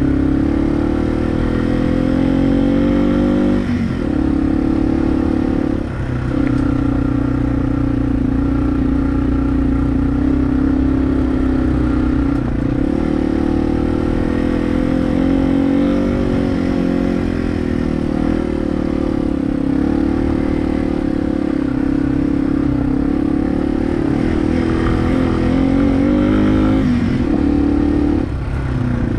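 Motorcycle engine running under load on a rough dirt road, its pitch climbing and falling with the throttle, with short dips in the revs about four and six seconds in and again near the end.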